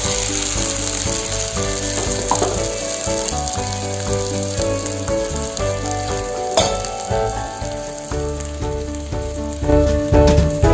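Ground masala paste sizzling in hot oil with fried onions in a kadai, with a sharp clink about two-thirds of the way through. Background music plays over it.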